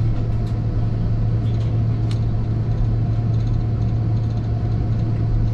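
Steady low drone of an Airbus A330 airliner's engines and cabin air, heard from inside the passenger cabin, holding an even level throughout with a few faint ticks over it.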